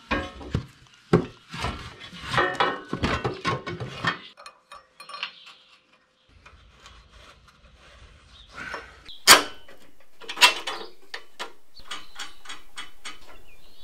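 Steel brackets and hand tools being handled and bolted together, clanking and clicking: a dense run of sharp clicks and knocks for the first few seconds, a quiet spell, then two loud sharp knocks and a run of quick ticks near the end.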